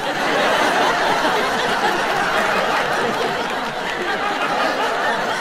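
Audience laughing and clapping together, a steady mix of laughter and applause.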